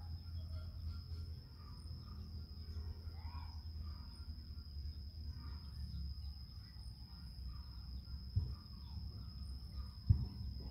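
Garden ambience: a steady high insect trill, scattered faint bird chirps and a low rumble, with a brief sharp knock near the end.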